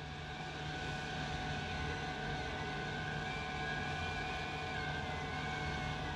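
Hot air rework gun blowing a steady stream of hot air onto a small SMD protection diode to desolder it, with a steady hum under the air noise.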